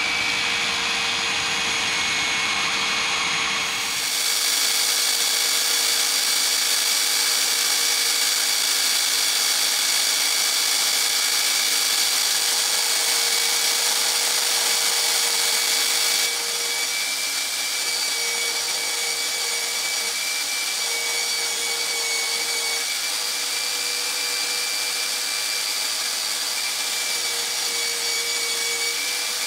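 Electric belt sander running under load as the steel of an old Hults Bruk axe head is ground against the moving abrasive belt to take off rust and surface marks. It makes a steady whine with a hum under it.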